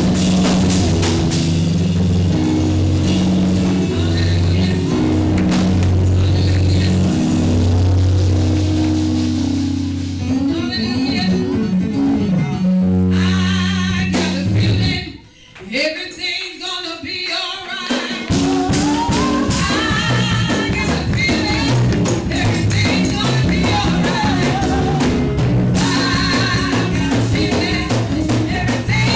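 Upbeat gospel music with drums, a bass line and singing. It drops away briefly about halfway through and then starts up again.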